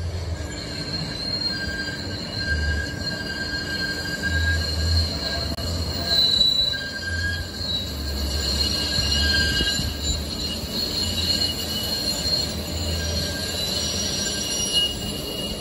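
Train wheels squealing against the rails: several high, steady squeal tones that swell and fade, over a low rumble of the moving train.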